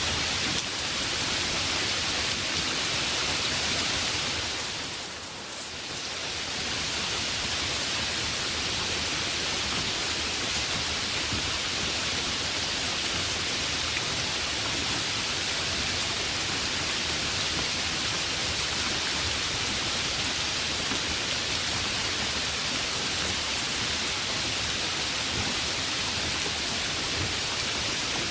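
Heavy rain falling steadily as a dense, even hiss. It fades briefly about five seconds in, then returns at full level.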